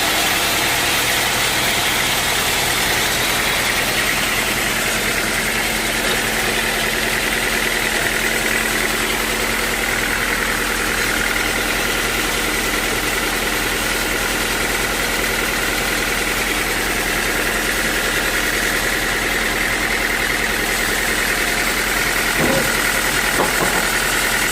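Sawmill machinery running steadily, a continuous mechanical hum with a constant high whine, with a couple of faint knocks near the end.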